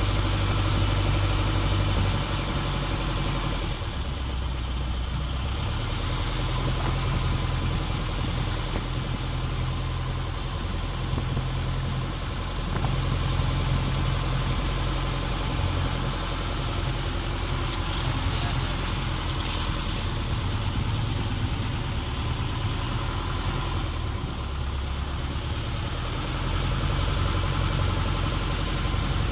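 The engine of a wooden motor longboat running steadily at speed, with a constant low drone.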